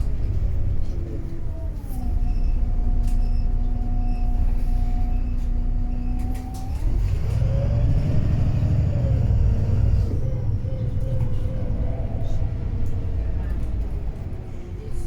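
Wright Pulsar 2 bus driving, its Cummins ISB diesel engine and Voith gearbox giving a heavy rumble with a whine. The whine holds one pitch for about five seconds, then dips briefly and rises and falls again.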